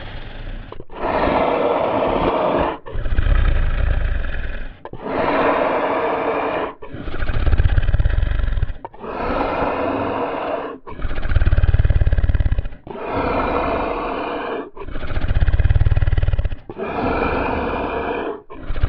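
Designed sound effect of a sleeping dinosaur: deep, slow snoring breaths. A low, rattling snore alternates with a breathier breath, each about two seconds long, so that a full breath cycle repeats about every four seconds.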